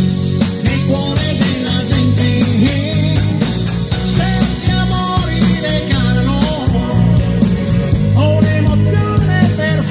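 Live pop-rock band playing an instrumental break: a lead electric guitar solo with bending notes over bass guitar, drums and keyboards.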